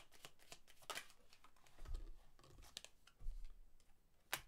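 A deck of tarot cards being shuffled and handled: a quick run of papery clicks in the first second, then sparser clicks with two low dull thumps, and one sharp click near the end.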